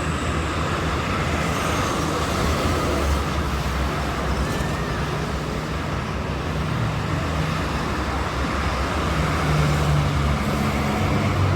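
Steady toll-road traffic: a continuous rumble of passing vehicles with low engine hum.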